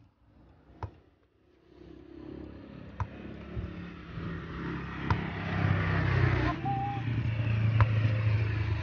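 A motorcycle engine approaches and grows steadily louder. Over it, a football is kicked four times, each touch a sharp tap.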